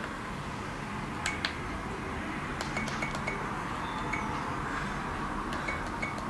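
Short high electronic beeps from a compact digital 4K camera as its buttons are pressed to step through the menu, one alone and others in quick runs of three. Two sharp clicks come about a second in.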